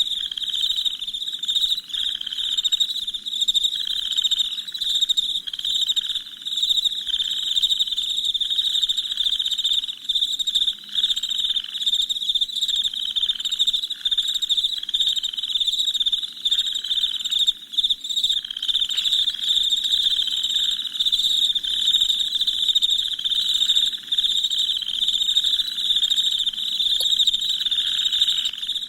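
Night chorus of crickets chirping: a dense, continuous high-pitched trilling, with a second, lower-pitched call pulsing about once a second underneath.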